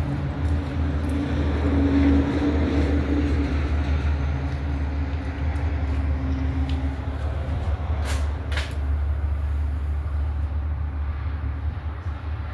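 An engine running steadily with a low, even hum. Two short knocks sound about eight seconds in.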